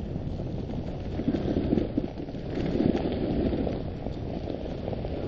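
A dog sled on the move over packed snow: the runners sliding and scraping, with the team's paws on the trail. It is a steady noise that grows louder for two stretches, about a second in and again about three seconds in.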